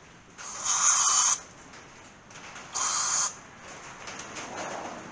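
Aerosol carb cleaner sprayed through an extension straw into a carburetor passage in two hissing blasts, the first about a second long, the second shorter. The passage is still clogged and the spray is meant to clear it.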